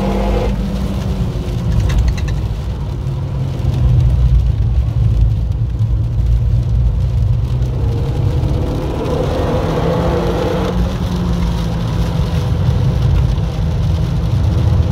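Renault Mégane RS's turbocharged four-cylinder engine heard from inside the cabin, its note rising and falling as the revs change. Under it are a deep road and tyre rumble and the hiss of rain and spray on a soaked track.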